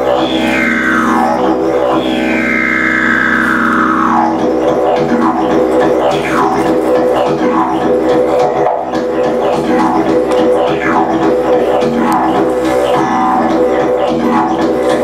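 Didgeridoo played with a continuous, unbroken drone. Over the first few seconds its upper overtones sweep slowly downward in long wah-like glides. These then turn into quicker rhythmic pulses, about one or two a second, worked from the diaphragm.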